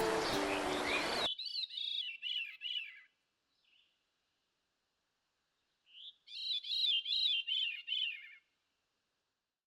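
Background music cuts off abruptly about a second in, then a songbird sings two short phrases of quickly repeated, downward-slurred chirps, with a pause of about three seconds between them.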